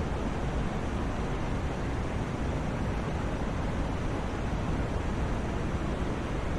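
Continuous synthetic sleep noise: an even, unchanging hiss, heavier in the deep low end than at the top.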